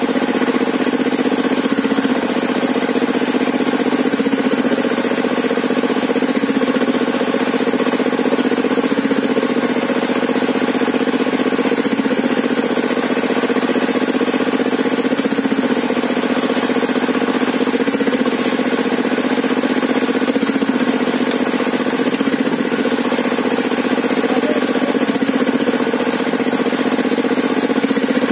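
Hand-cranked stationary engine that drives a sawmill's saw bench, running steadily at an even speed with no change in load.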